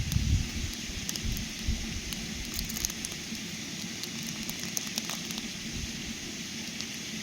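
Small wood fire crackling in a mini fire pit: a steady hiss with scattered sharp pops and snaps. A low rumble sits under it in the first second or two.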